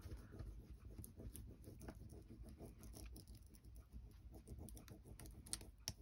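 A wooden stick rubbing quickly back and forth over a rub-on transfer sheet on a playing card: faint, fast scratching on paper, with a couple of sharper ticks near the end.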